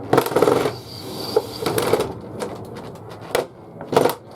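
Irregular knocks and clattering of wooden and metal parts being handled and set down, with a quick run of knocks in the first second and single sharper knocks later.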